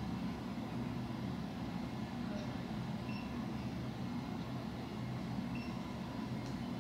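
A steady low hum, with a few faint, brief high-pitched blips.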